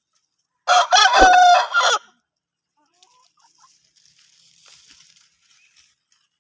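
Rooster crowing once, a single crow about a second and a half long, followed by faint scattered noises.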